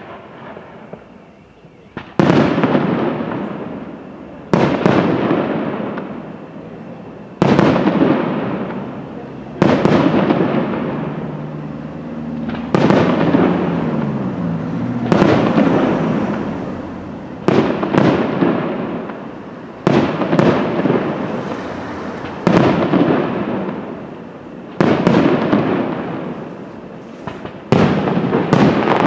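Aerial fireworks shells bursting, about one every two and a half seconds after a quieter first two seconds. Each burst is a sharp bang that trails off over a couple of seconds.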